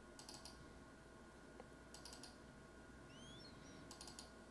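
Faint computer mouse clicks in near silence: three quick groups of clicks about two seconds apart, made while splitting and moving notes in pitch-correction software.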